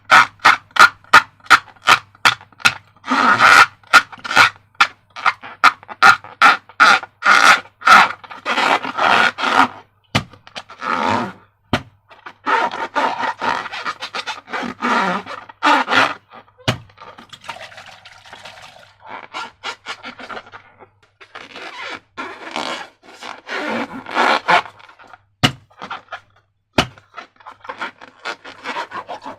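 Sticky, crackling clicks of slime being squished and worked by hand, at first as a quick run of sharp clicks and then in repeated bursts with short pauses between them.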